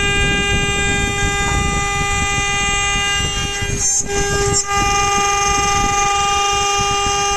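CNC router spindle cutting an aluminium plate with an end mill: a steady high whine of several even tones over a harsh, gritty cutting noise, dipping briefly twice about four seconds in.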